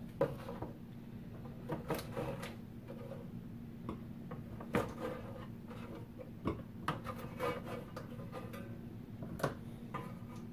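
Scattered light taps and clicks of cookies being picked off a plastic oven liner tray and set down on a wire cooling rack, a few soft knocks every second or so, over a faint steady hum.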